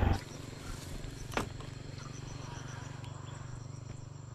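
Faint insect chirping, a short run of quick, even high chirps, over a low steady hum, with a single sharp click about one and a half seconds in.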